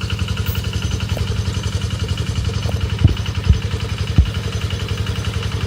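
Small engine of a rice-cutting machine running steadily with a fast, even pulse, and three low thumps a little past halfway.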